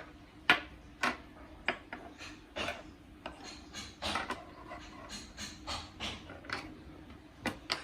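Small plastic pump accessories and packaging being handled and set down, giving irregular clicks and knocks with some rubbing between them, about one or two a second.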